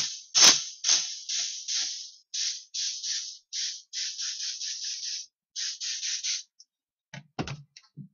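Games Workshop spray gun, run off a propellant can, fired in a rapid series of short hissing test bursts, about two to three a second, the first two loudest. These are the test sprays that draw the primer up from the reservoir until paint starts coming out. A few short knocks follow near the end.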